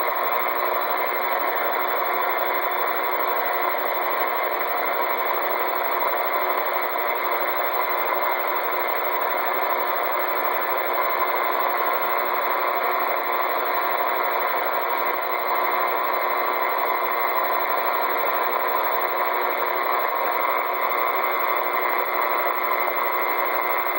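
Steady hiss of radio static from a two-way radio receiver, an even rush of noise with no voice on it, cut off sharply above and below like sound through a radio speaker.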